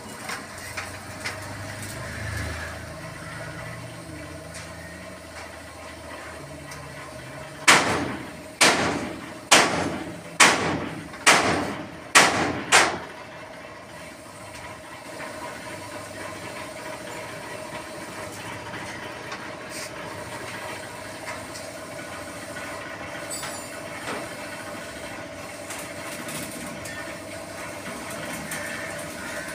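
Seven loud, sharp knocks in an even series, a little under one a second, each ringing briefly, about a quarter of the way in, over a steady background hum.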